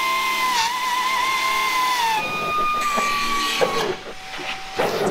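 Milwaukee cordless wet/dry vacuum running with a steady high whine that dips and wavers as the nozzle sucks up debris. The pitch jumps higher about two seconds in and drops lower near four seconds in, with a few knocks from debris and the hose near the end.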